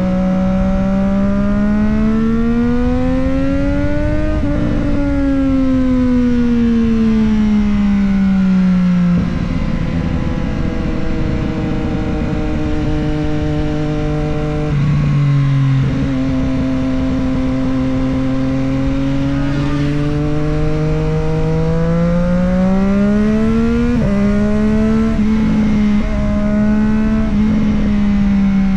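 Triumph Street Triple 765 RS's three-cylinder engine and exhaust under way, the revs climbing for about four seconds, then easing off and climbing again. Sudden drops in pitch about nine, fifteen and twenty-four seconds in mark gear changes.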